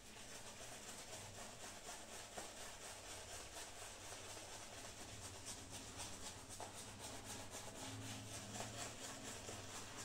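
Shaving brush rubbing lather over the face and neck: faint, quick repeated swishing strokes.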